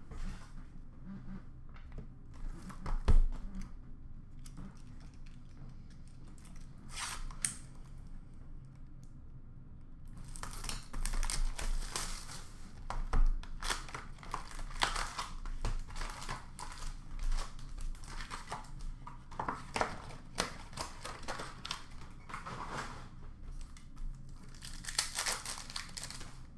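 Trading-card pack wrappers crinkling and tearing as hockey card packs are ripped open, dense from about a third of the way in. A cardboard box of packs is handled just before, with one sharp knock about three seconds in.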